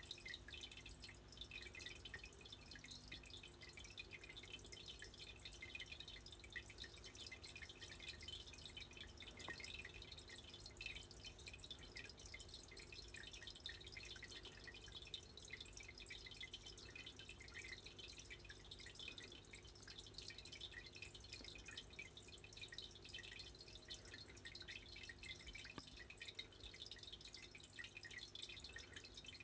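Near silence: faint room tone with a soft, irregular patter of tiny high ticks over a low steady hum.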